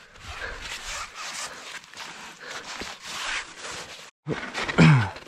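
Rustling and rubbing of clothing and climbing or ski gear, with hard breathing, then a short groan falling in pitch near the end.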